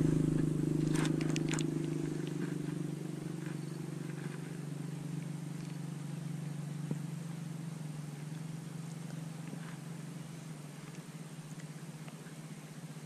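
A motor vehicle's engine running at a steady pitch, fading gradually as it draws away. A couple of sharp clicks about a second in.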